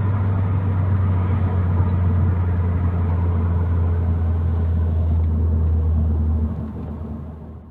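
Ford Focus XR5 Turbo's turbocharged five-cylinder engine holding a steady low drone under way, with road rumble, after the cracked sump has been patched. Near the end the drone drops away and the sound fades out.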